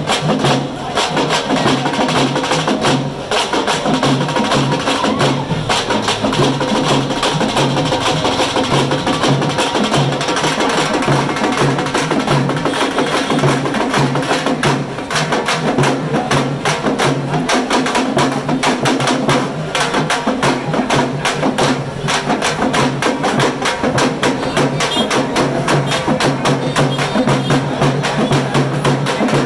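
Several shoulder-slung drums beaten with sticks in a fast, dense, continuous rhythm: the live street drumming that accompanies an Odisha tiger dance.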